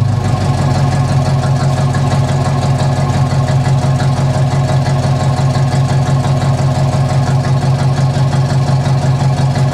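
Holden VC Commodore engine idling through its new aftermarket exhaust, a loud, steady, evenly pulsing exhaust note.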